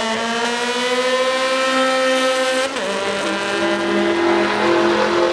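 Car engine under hard acceleration on a race track, its pitch climbing steadily, then dropping sharply about two and a half seconds in at an upshift and pulling on at a steadier pitch.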